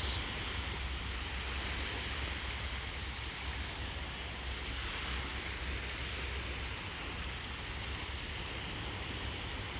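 Steady wash of ocean surf with a low rumble underneath.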